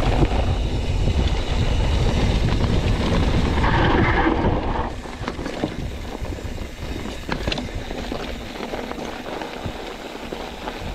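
Wind buffeting the camera microphone and mountain-bike tyres rumbling over a loose dirt trail on a fast descent, with scattered clicks and rattles from the bike. It is loudest for the first five seconds, then eases off.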